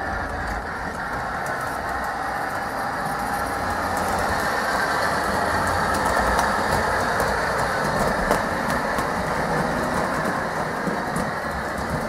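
Gauge 1 (1:32 scale) model diesel locomotive hauling coaches along the track: a steady running rumble of motor and wheels, with light scattered clicks as the wheels cross rail joints and points.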